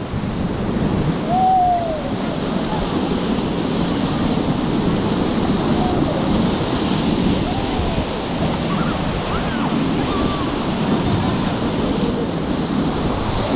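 Whitewater of a river rapid rushing steadily around a raft, with faint shouts from the rafters now and then.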